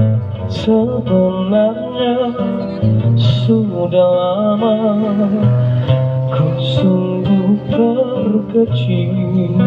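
A man singing into a microphone while strumming an acoustic guitar, a busker's live song with a steady strummed accompaniment.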